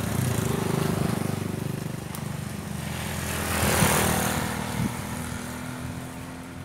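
Motorcycle engine running as it passes by, fading away, with a second vehicle passing in a rush of noise that peaks about four seconds in.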